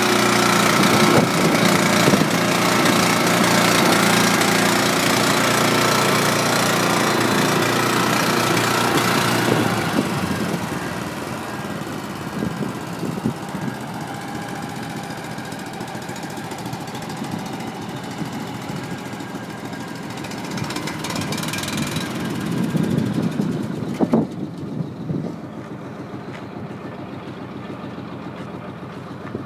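Small Honda gas engine driving a tanker trailer's centrifugal pump, running steadily up close. About ten seconds in it drops to a fainter, steady run in the background, and a sharp click comes near the end.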